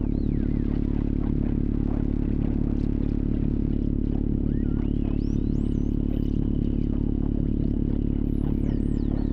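Honda Gold Wing motorcycle engine running steadily while riding, picked up by an onboard camera, with wind and road noise on the microphone.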